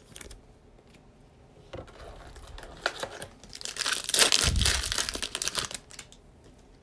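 A Prizm basketball retail card pack's wrapper being crinkled and torn open by hand. Faint rustling and a few sharp crackles build to a loud tearing crackle about four seconds in, then fade.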